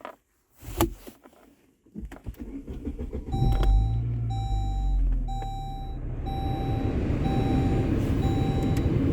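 Saab 9-3 engine cranking and starting about three seconds in, then idling steadily, preceded by a couple of clicks. A dashboard warning chime beeps about once a second over the idle.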